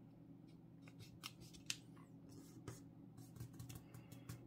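Faint rustling and crackling of a sheet of paper being folded and creased flat by hand, a scatter of small crackles with the sharpest about one and a half seconds in.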